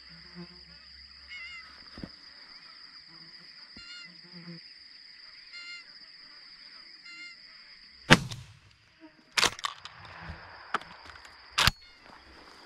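Magpie geese honking at intervals, then a single loud blast from a lever-action 12 gauge shotgun about eight seconds in, followed by two more sharp cracks, one about a second and a half later and one near the end.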